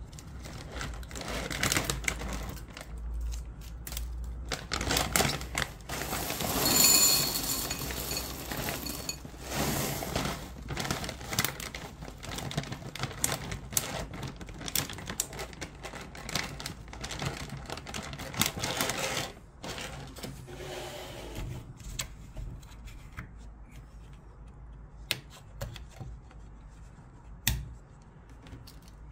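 Chocolate cereal squares pouring from a plastic bag into a ceramic bowl, a dense rapid rattle and clatter mixed with the bag crinkling. It thins out about two-thirds of the way in to a few separate clicks and rustles.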